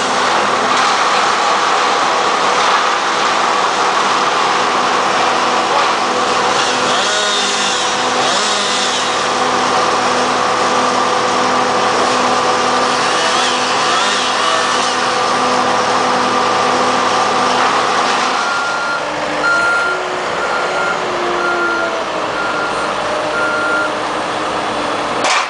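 A heavy machine's engine running steadily, then dropping away about three quarters of the way through. After that a reversing alarm beeps evenly, about seven times.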